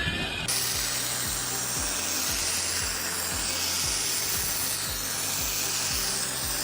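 Background music with a steady beat, and over it a loud, steady hissing noise of a power tool cutting that starts abruptly about half a second in.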